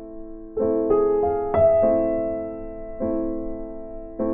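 Background piano music: soft chords struck every second or so, each ringing out and fading.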